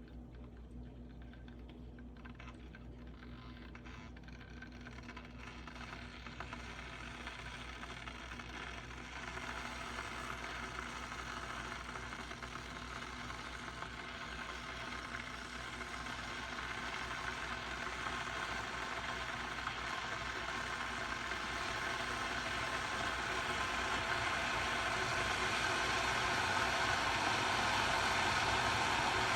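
Stainless steel electric kettle heating water: a steady hiss and rumble that grows steadily louder as the water warms toward the boil. A few faint clicks sound in the first few seconds.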